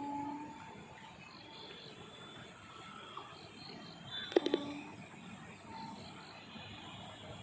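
Crickets chirping in a steady, regular pulse over a background of frogs. A long low tone fades out about half a second in, and a brief sharp sound with a short tone comes about four and a half seconds in.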